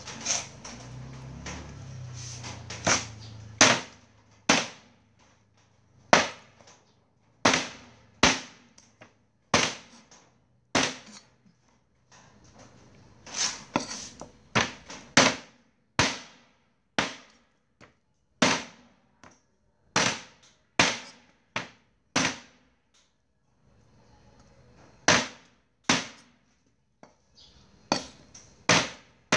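A cleaver chopping raw duck into pieces on a round wooden chopping block: sharp single chops, about one or two a second, in uneven runs with a few short pauses.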